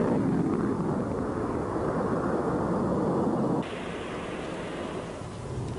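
Jet aircraft flying past: a steady, low, noisy engine rumble. It drops abruptly in level about three and a half seconds in.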